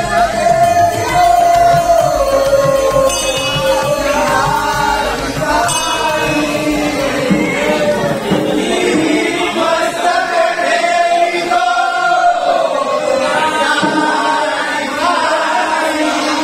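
A group of men singing a devotional song together, with a low steady beat under the first half that stops about halfway through.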